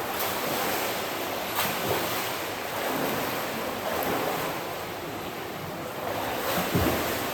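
Pool water splashing and churning as a swimmer works through a stroke drill, with a few louder splashes.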